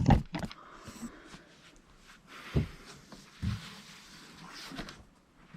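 Faint rustling of paper and cardboard packaging being handled, with two soft knocks in the middle.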